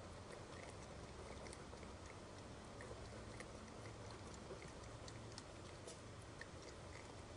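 Raccoon eating birdseed and corn: faint, irregular crunching clicks over the steady hiss of a trail camera's microphone.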